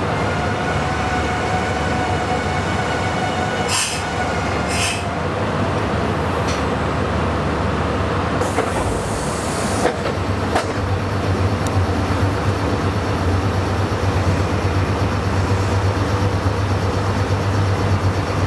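Meitetsu 9500 series electric train pulling into a station: its motors whine, with a pitch and overtones that fade as it slows over the first few seconds. A short hiss comes about halfway through as it comes to a stop, then a steady low hum while it stands at the platform.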